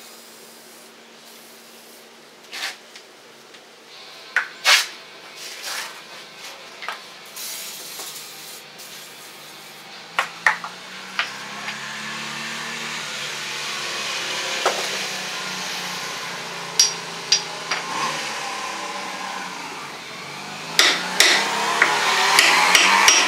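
Scattered metal knocks and clicks at the rusted, penetrant-soaked lower control arm bolt of a 1989 Honda Civic, then a quick run of sharp ringing metal strikes near the end as a steel tool is hammered against the seized bolt. In the middle a rush of noise with a low hum swells and fades.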